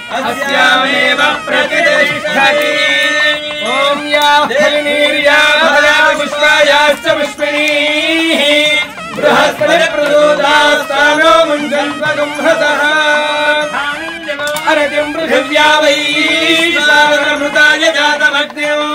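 Group of men's voices chanting a melodic Hindu ritual chant in unison, sung continuously with gliding, held notes.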